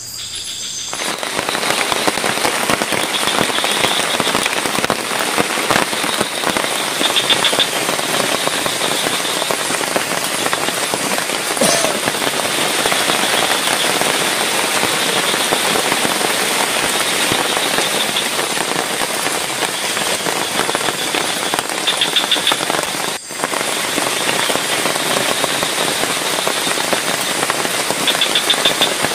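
Heavy rain pouring steadily, a dense even hiss, with a few short high insect trills now and then. The sound dips for a moment about 23 seconds in.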